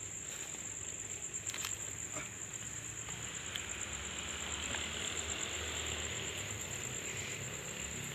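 Crickets trilling steadily in a high, even pulse, with a few faint clicks.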